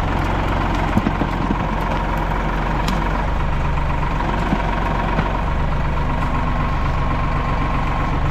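Tractor engine running steadily, with a thin steady whine above it and a few short knocks about a second in and again near the middle.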